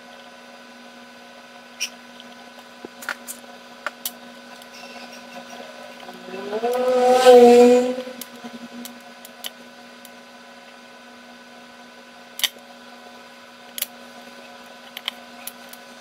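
Small clicks and ticks of fine copper jumper wire and a soldering iron being handled on a phone mainboard, over a steady electrical hum. About six seconds in, a louder pitched sound rises and holds for about two seconds.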